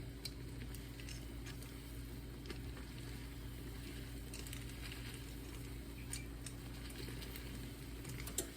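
Pot of chicken broth with noodles simmering, a faint sizzle with scattered small ticks over a steady low hum.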